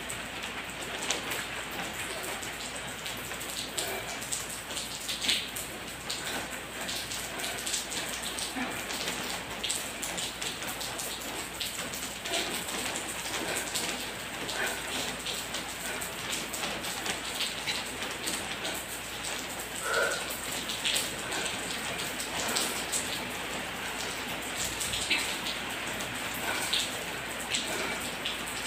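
Steady rain falling on a surface, an even patter with scattered louder drops.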